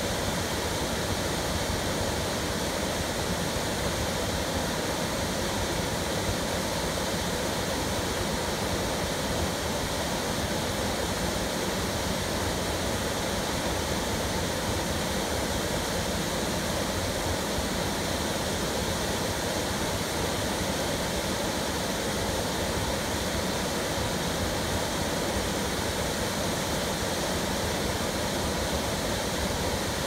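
Two waterfalls pouring into a plunge pool: a steady, even rush of falling water.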